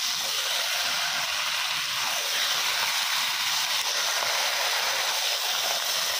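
Heavy rain falling: a loud, steady hiss that keeps the same level throughout.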